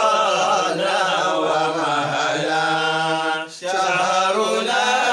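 A voice singing an Arabic nasheed welcoming the month of Ramadan, in a winding, melismatic melody. Past the middle it settles on a long held note, breaks off briefly, and then the singing goes on.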